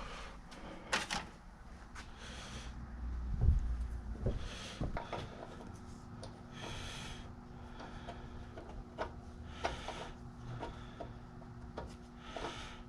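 Older Craftsman bench vise being cranked open and closed on its freshly repaired screw threads: scattered clicks and short scraping rubs of metal, with one heavier thump about three and a half seconds in.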